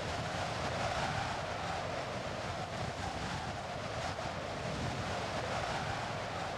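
A steady rushing noise that holds level throughout, with no separate events in it.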